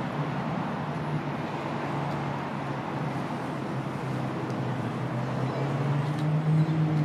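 Steady background road traffic noise, with a low engine hum that grows louder near the end.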